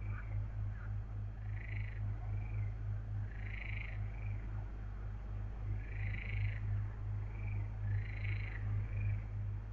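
Frogs calling: short, arched croaks repeating every second or two, over a steady low hum.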